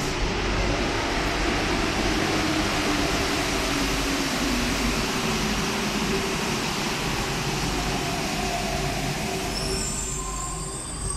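Paris Metro Line 1 rubber-tyred MP 05 driverless train running into the platform with a steady rushing noise and faint whines that glide in pitch. The noise eases off near the end as the train slows to a stop.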